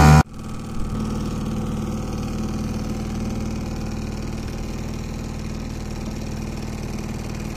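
A boat's motor running steadily under way, a constant low hum that holds the same pitch throughout.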